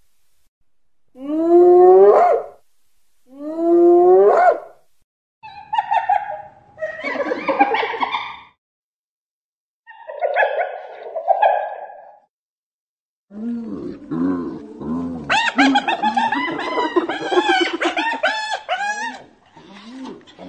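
Spotted hyena vocalising: two rising whoops near the start, then harsher, rougher calls. From about two-thirds of the way in comes a long run of rapid, repeated giggling notes.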